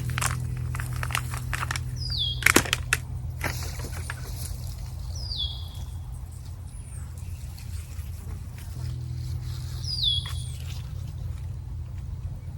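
A bird calling three times, each call a short downward-sliding note, over a low steady hum that stops a few seconds in and comes back near the end. There are a few sharp knocks in the first few seconds.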